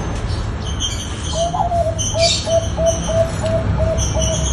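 Zebra dove (perkutut, Bangkok strain) cooing: a quick run of short, even coos, about three a second, starting about a second in and running on to the end. High chirps of other birds sound over it.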